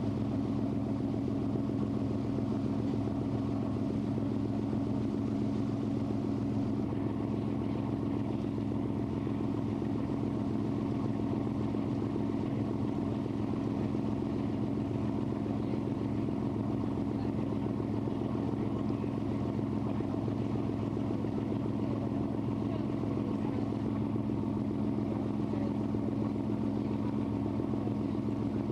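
A lake cruise boat's engine running steadily, a low, even drone, with water and wind noise over it.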